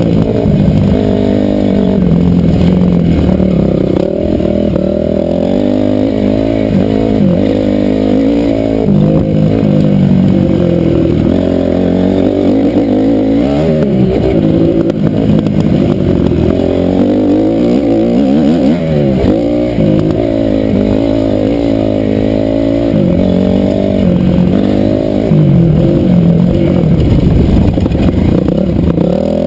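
KTM 350 SXF four-stroke single-cylinder motocross engine revving up and dropping back again and again as the bike is ridden hard around a dirt track.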